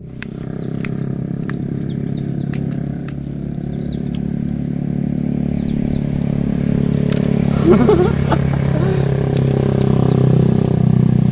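A steady engine drone, with scattered sharp clicks and small high chirps over it.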